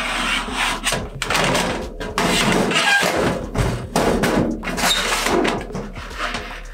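Thin sheet-copper sink being worked by hand: irregular thunks and a wobbling metallic rattle as the sheet flexes under a metal straightedge pressed across its bottom, with scraping of the metal on the copper. The sound fades near the end.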